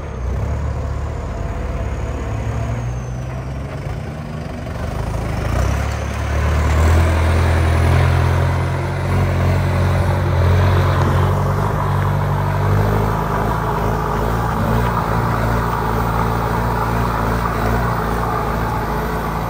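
Kubota M7508 tractor's turbo diesel engine running under load while pulling a disc plow, getting louder about six seconds in. A faint turbo whistle rises in pitch as the engine pulls.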